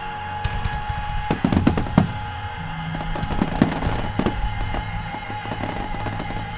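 Fireworks going off in a run of sharp bangs, a burst of them a little over a second in and more around three to four seconds in, over steady background music.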